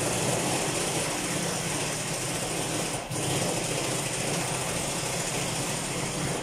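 A machine running loudly with a dense, steady mechanical whirr, with a short break about three seconds in; it starts and cuts off abruptly.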